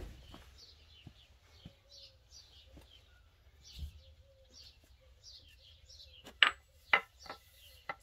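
Small birds chirping over and over in short falling notes, with two loud sharp knocks about six and a half and seven seconds in, followed by a few fainter ones.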